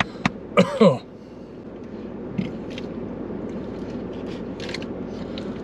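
Inside a car cabin: a brief voiced vocal sound from a man about a second in, then paper takeout boxes rustling and small clicks and taps of eating over a steady low cabin hum.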